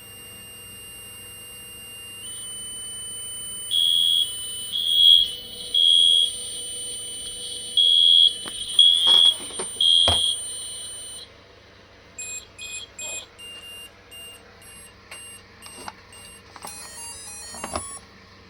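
Homemade Arduino fire alarm going off: a buzzer beeping in two groups of three over a steady high whine, with a couple of clicks near the middle. After it stops about eleven seconds in, the alarm panel's speaker plays a string of short coded beeps and a quick run of stepped tones, signalling that the system is ready again.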